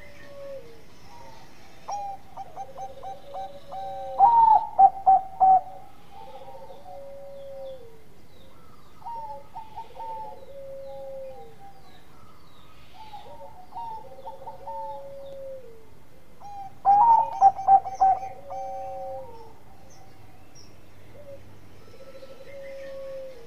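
Zebra dove (perkutut) cooing over and over: each phrase is a run of quick stuttering notes followed by a longer note that drops at its end. There are two louder bursts, about four seconds in and again around seventeen seconds.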